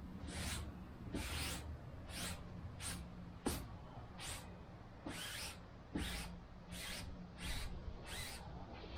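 Rag rubbed in quick repeated strokes over glue-wet aircraft wing fabric, a short swish about once or twice a second, pressing watered-down fabric glue down through the weave.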